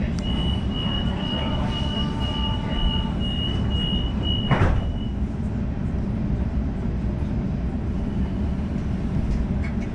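Inside a Sydney suburban train carriage: a steady low rumble, with a high, pulsing tone over the first five seconds and a single sharp thump about four and a half seconds in.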